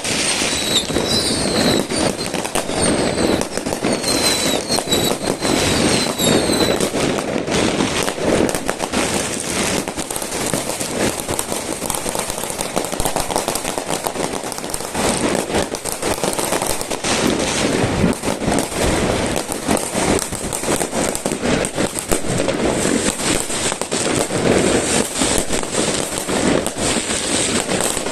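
Many fireworks and firecrackers going off at once, a continuous barrage of bangs and crackles. Short high whistles come through it during the first several seconds.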